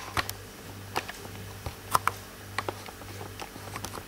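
Scattered light clicks and taps at irregular intervals, the sharpest about two seconds in, over a faint low hum.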